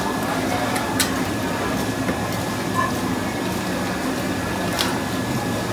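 Cleaver and knife cutting fish on a wooden chopping block, with two sharp knocks about a second in and near the end. Under them runs a steady background hum and noise.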